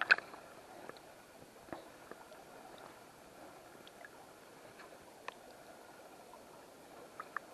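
Faint, steady rush of river water over a riffle, with a few light clicks.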